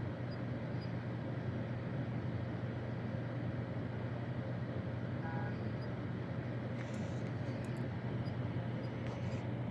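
Steady low hum, with a faint short beep about five seconds in.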